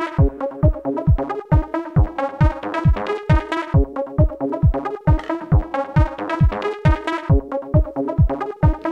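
Electronic dance music with a steady kick-drum beat, a little over two beats a second, under synthesizer parts.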